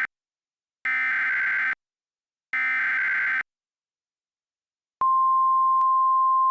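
Emergency Alert System SAME header: two buzzy digital data bursts of about a second each, marking the start of an alert. About a second and a half later, a steady single-pitch alert tone begins and holds.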